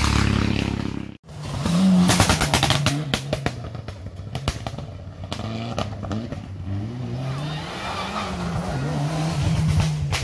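Rally car engine revving hard through a hairpin, its pitch rising and falling again and again as the car brakes, slides and accelerates away. A rapid run of sharp cracks comes about two seconds in, and the sound cuts out briefly about a second in.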